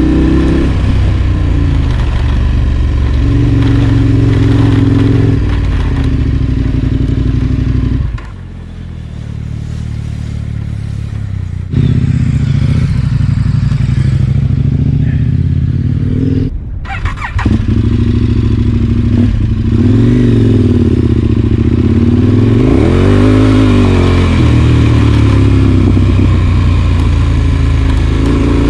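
KTM 1190 Adventure R's V-twin engine running as the motorcycle is ridden, its revs rising and falling with the throttle. It eases to a quieter run for a few seconds about a third of the way in and drops out for a moment just past halfway.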